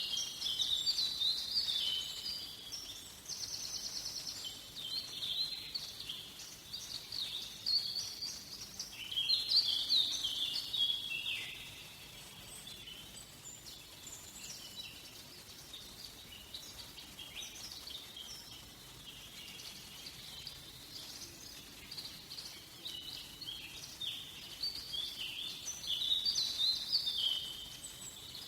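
Songbirds singing in a forest, quick chirping and warbling phrases from several birds. The song is busiest in the first ten seconds or so and again near the end, thinner in between, over a faint steady background hiss.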